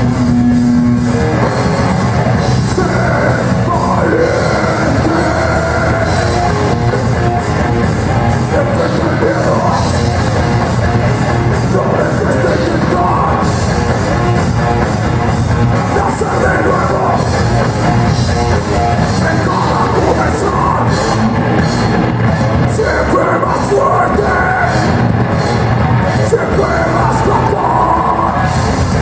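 Heavy metal band playing live: distorted electric guitar, bass and a Sonor drum kit, with sung and shouted vocals over the top.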